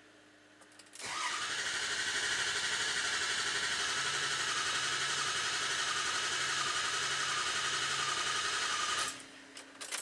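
Ford 6.0 Powerstroke V8 diesel cranking over on its starter for about eight seconds without starting, beginning about a second in and stopping abruptly near the end. The high-pressure oil pump is deadheaded by plugs on the standpipes and builds about 1500 psi while it cranks.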